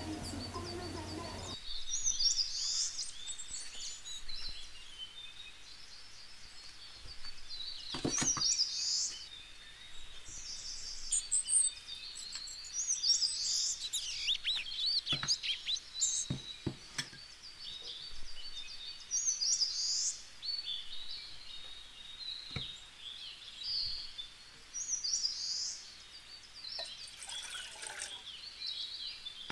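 Small birds chirping over and over in short high calls, with a few sharp knocks of kitchenware being handled. Near the end, water is poured into a cooking pot.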